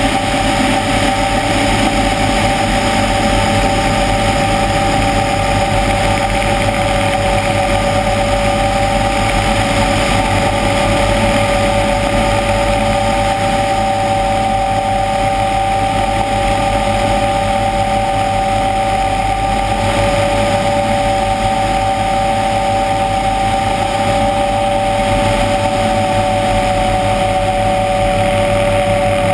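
Helicopter in steady flight: a constant engine and rotor drone with two unchanging whining tones over rushing air, picked up by a camera mounted outside the fuselage.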